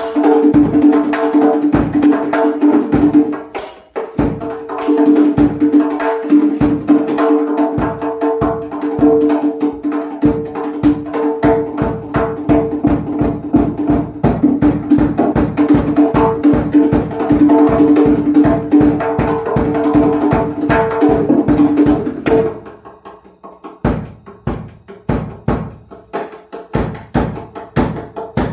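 Solo drumming: fast, dense strokes over two steady ringing drum tones, with regular bright high accents in the first few seconds. About 22 seconds in the loud playing breaks off, and after a short pause softer rapid strokes begin again.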